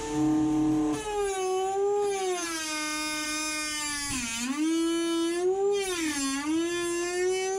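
Dremel rotary tool whining at high speed as it grinds rust off the van's sheet-metal body inside a cavity. Its pitch dips briefly twice, about four and six seconds in, as it is pressed into the metal.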